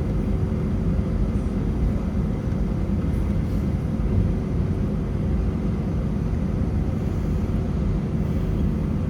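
Steady engine and air noise inside the passenger cabin of an Airbus A320 with IAE V2527 engines: a low, even rumble with a faint steady hum on top.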